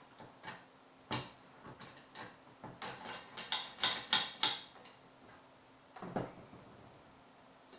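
Sharp metal clicks of a Ruger Mini-14 rifle's bolt being worked by hand into the receiver: a single click about a second in, then a quick run of about eight clicks, the loudest near the middle, and a duller knock near the end.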